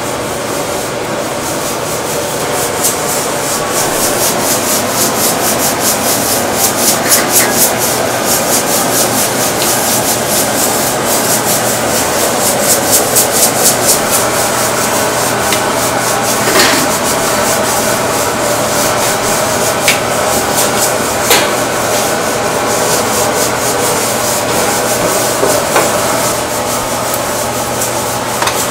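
Fast, continuous scraping strokes of a hand tool working the skin of a raw pork belly, over a steady low kitchen hum. Several single sharp knocks come in the second half.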